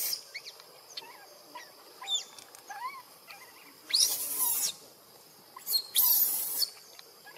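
Baby macaque giving short, high squeaks and peeps over and over, each a quick slide up or down in pitch. Two louder noisy bursts come about four and six seconds in.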